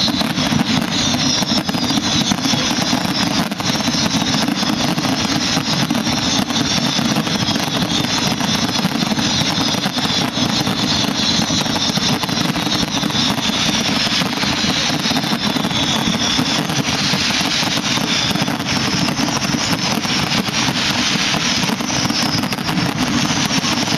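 Fireworks display going off in a continuous dense barrage of bangs and crackles, loud and unbroken throughout.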